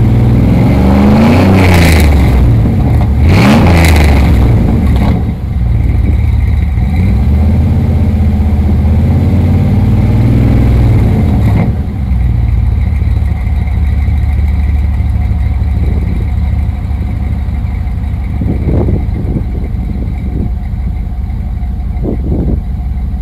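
A 2003 Dodge Dakota R/T's 5.9 L V8 running through a cat-less exhaust with a Flowmaster 50 Series Delta Flow muffler dumped at the axle. It is revved twice in quick succession, then brought up more slowly, held and eased back down. About twelve seconds in it settles to idle, with a few light throttle blips.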